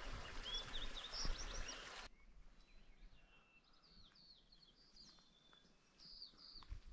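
Small birds chirping in many short, quick high notes over a faint outdoor hiss. About two seconds in, the sound cuts abruptly to a quieter take where the chirping goes on.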